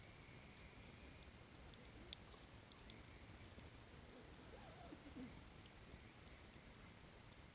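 Softwood campfire burning, with faint, irregular crackles and pops.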